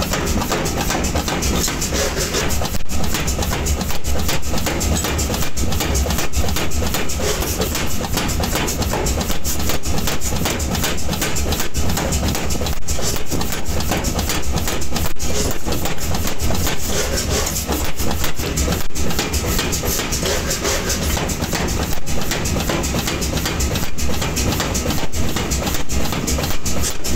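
Metalworking machinery running with a loud, continuous rattling clatter of rapid, irregular knocks.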